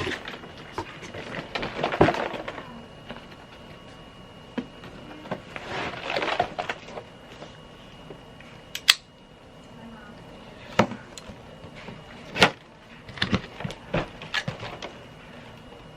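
Plastic toy packaging being handled: rustling swells about two and six seconds in, then a run of sharp clicks and taps of hard plastic parts being handled.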